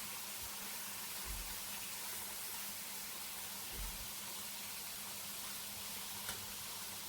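Chicken fillets sizzling in an oiled frying pan, a steady faint hiss, with a couple of soft low bumps.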